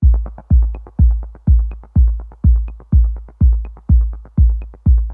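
Background electronic dance music with a steady, heavy kick drum about twice a second and lighter hi-hat clicks between the beats.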